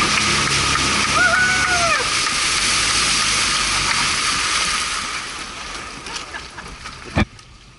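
Small motor boat running at speed, its outboard motor humming under loud rushing water and wind noise, easing off after about five seconds. A single sharp knock near the end.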